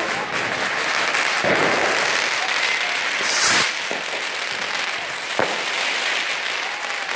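Fireworks and firecrackers going off: a continuous crackle broken by sharp bangs, the loudest about halfway through, with a couple of faint whistles.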